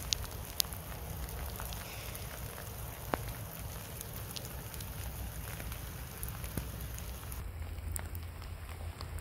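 Rain falling steadily, with scattered sharp ticks of single drops.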